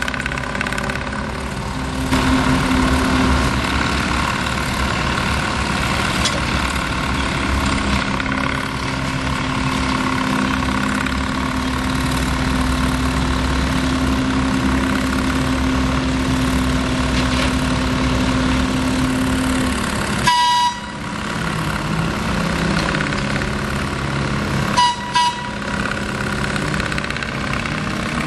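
Small Brookville industrial locomotive's engine running steadily, with a steady low drone held through the first two-thirds. Two brief knocks come about two-thirds through and again near the end.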